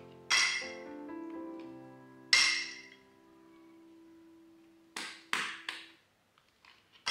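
Soft instrumental background music: held notes with two bright struck notes early on. About five seconds in come three sharp taps or clicks in quick succession.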